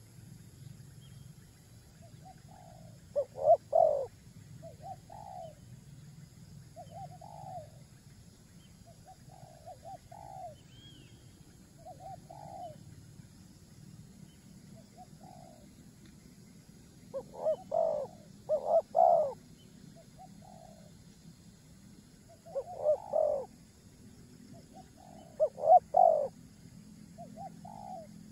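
A bird calling in short, low notes every second or two, with louder clusters of two or three notes several times.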